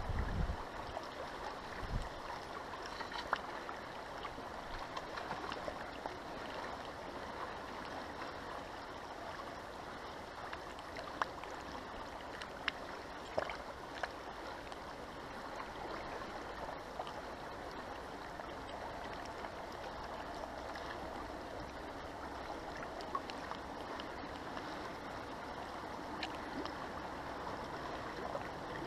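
Fast-flowing river water rushing steadily, with a few faint clicks scattered through it and a couple of low knocks in the first two seconds.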